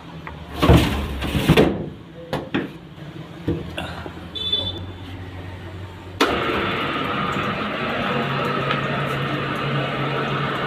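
Scattered knocks and scraping from handling and brushing, with a loud scrape about a second in. At about six seconds the chilli-powder oil-mixing machine's motor starts suddenly and runs with a steady, even noise and a low hum.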